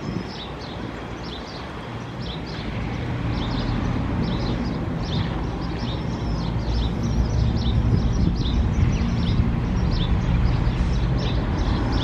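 Birds chirping, short high chirps repeating a few times a second, over a low engine drone that grows louder a few seconds in.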